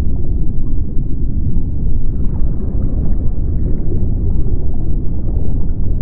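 Deep underwater ocean ambience: a steady low rumble with faint scattered clicks.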